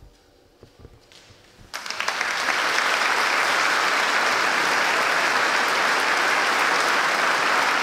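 Audience applauding in a large church, breaking out suddenly about two seconds in after a short hush and then holding steady.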